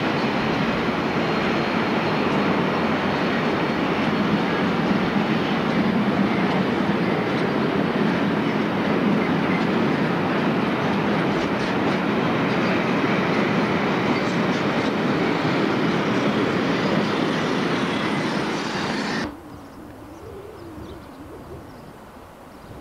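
A freight train of bogie tank wagons rolling past, a steady loud noise of wheels on the rails. It cuts off abruptly about nineteen seconds in, leaving much quieter outdoor sound.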